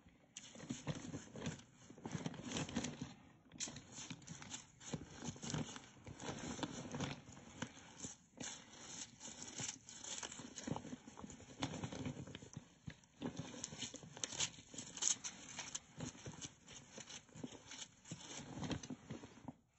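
Bath salt and rice grains being crushed on carpet: an uneven run of crunches and crackles, with brief pauses about three and a half, eight and thirteen seconds in.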